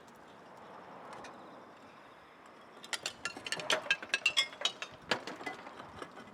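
Fired clay roof tiles clinking and knocking against each other as they are handled and stacked. A rapid run of sharp, ringing clinks starts about halfway in and eases off after a couple of seconds.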